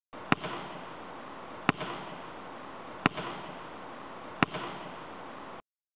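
A ball striking hard four times, evenly spaced about a second and a half apart, each hit echoing through an empty sports hall, over a steady hiss. The sound cuts off suddenly near the end.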